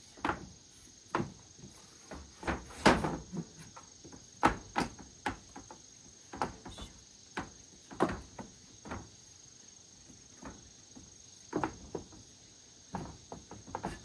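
A steady high-pitched insect trill, with irregular light knocks and taps over it, the loudest about three seconds in.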